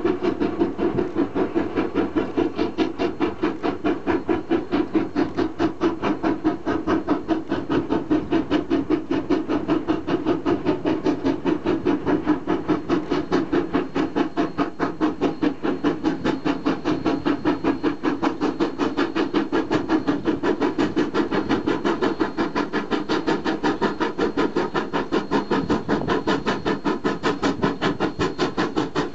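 Steam locomotive hauling a passenger train, its exhaust chuffing in a quick, even rhythm as it works along the line.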